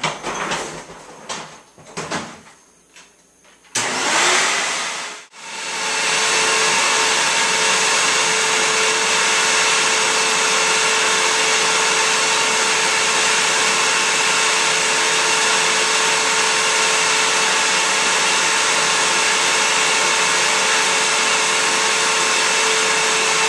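A few knocks and clatters, then an upright vacuum cleaner starts about four seconds in, cuts out for a moment a second later, and runs steadily with a constant hum.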